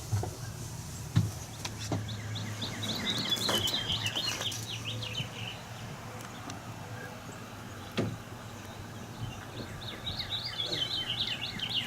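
A songbird singing rapid runs of high chirps, twice: once a few seconds in and again near the end. A few sharp knocks and a steady low hum sound under the song.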